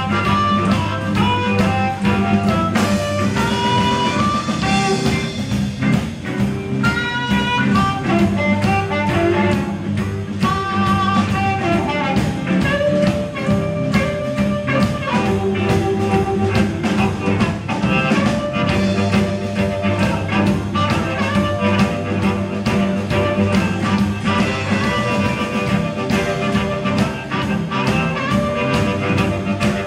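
Live blues band playing: an amplified harmonica, cupped against a handheld microphone, plays a bending lead line over electric and acoustic guitars and a drum kit.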